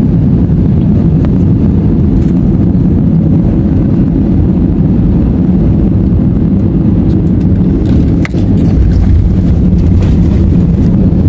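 Loud, steady low rumble of airliner cabin noise (Airbus A320-family engines and airflow) during the landing. About eight seconds in it briefly dips, then comes back deeper and louder.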